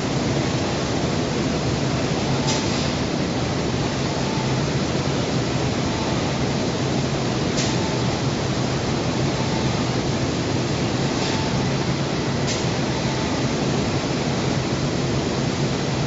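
Robotic paint-spraying booth running: a constant machine hum and spray hiss, broken by a few short, sharp hisses.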